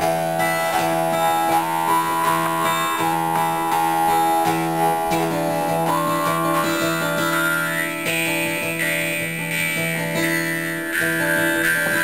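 Music played on guitar, with steady held notes under a moving melody.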